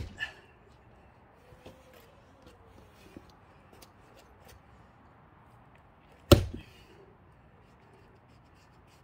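Axe blows splitting a thick, not fully dried pine log: one sharp chop at the very start and another about six seconds in, with faint knocks of wood between.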